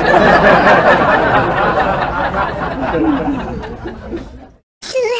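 Canned audience laughter: a dense burst of many people laughing that fades out over about four and a half seconds. Near the end a short sung jingle starts.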